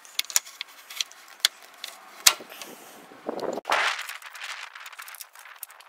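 Handling clatter of a metal battery hold-down J-hook against the plastic battery box: a string of sharp clicks and taps, the loudest knock a little past two seconds in, then a brief rustle and a few fainter clicks.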